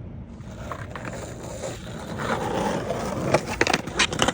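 Skateboard wheels rolling on wet pavement, growing louder as the skater comes closer, then several sharp clacks of the board popping, striking and landing near the end.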